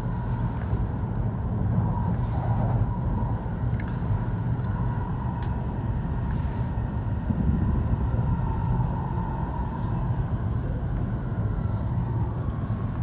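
Shinkansen running at speed, heard from inside the passenger cabin: a steady low rumble with a faint steady hum above it and a few light ticks.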